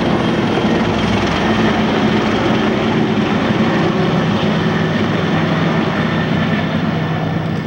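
A loud, steady engine drone with a low hum.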